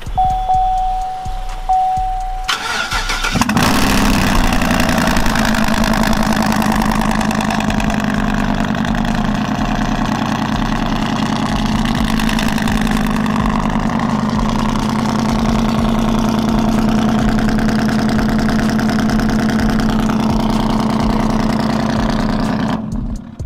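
2015 Chevy Silverado 1500 Z71's engine being started: a steady high beep for the first two seconds, then the engine cranks and catches about three seconds in and settles into a steady idle. The exhaust runs with its catalytic converters removed. The sound cuts off suddenly near the end.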